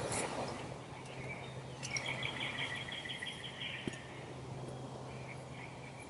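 A bird's rapid high trill lasting under two seconds, about two seconds in, over steady outdoor background noise with a low hum.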